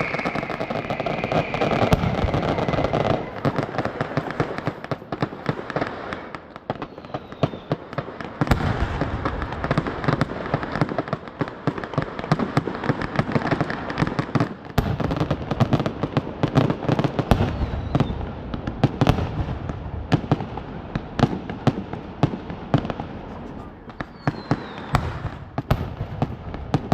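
Aerial fireworks going off in a dense, continuous barrage of bangs and crackling, with a few short whistles.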